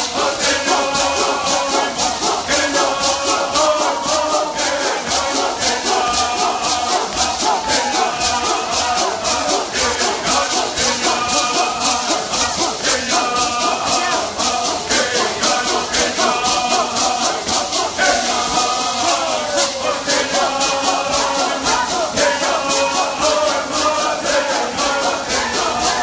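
Voices chanting a traditional bird song together, accompanied by gourd rattles shaken in a steady rhythm.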